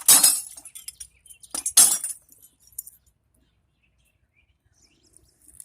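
Loose scrap computer parts clinking and clattering as they are handled and dropped, with two loud clatters, one at the start and another about two seconds in, followed by a few lighter clicks.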